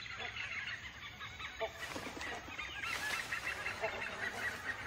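Birds calling in a forest canopy: a dense chorus of short high chirps, with a lower call repeating about every two seconds.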